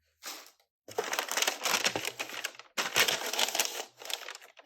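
Packaging crinkling and rustling as it is handled and pulled open, in a short burst and then two long bouts.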